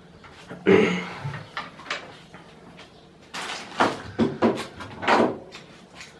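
Knocks and rattles of door handle and lock hardware being handled and fitted on a door, a loud clunk a little under a second in and a cluster of further knocks a few seconds later.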